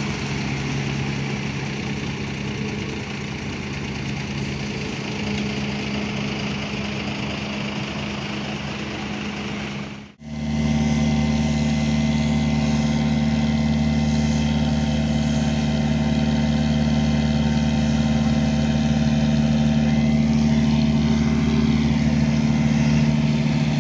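A heavy engine running steadily at a constant speed. It breaks off for an instant about ten seconds in, then continues.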